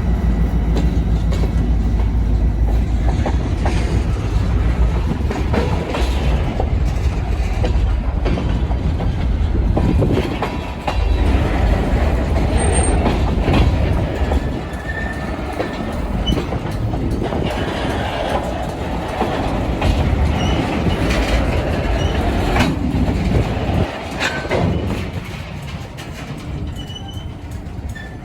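Passenger train passing close by: a heavy low rumble with the wheels clicking over rail joints, easing off and fading over the last few seconds.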